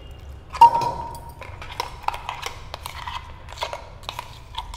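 A steel spoon clinking and scraping inside a small stainless steel tumbler: one loud ringing clink about half a second in, then a run of lighter taps and scrapes.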